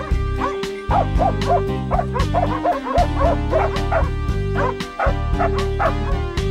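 Hunting dogs baying in short, rapid yelps, about two to three a second, at a wild boar holed up in cover, over loud background music.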